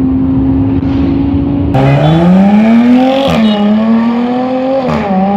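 A steady engine drone heard from a moving car, then a sports car engine accelerating hard from about a second and a half in. Its pitch climbs and drops sharply at two upshifts, one near the middle and one near the end.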